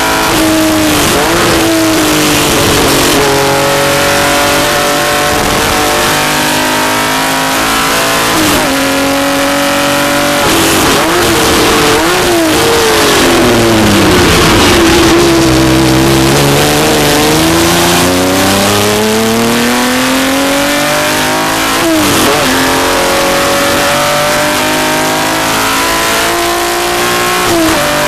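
Wilder T350R race car's Wilder Fury R-Spec engine heard from on board under hard acceleration, its pitch climbing through the gears with quick upshifts. Around the middle it drops in pitch as the car slows, then climbs again through the gears to the end.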